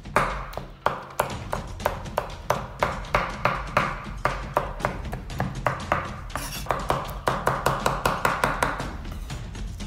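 Kitchen knife chopping soft roasted red peppers on a bamboo cutting board: a quick run of sharp knocks of the blade on the wood, getting faster in the second half.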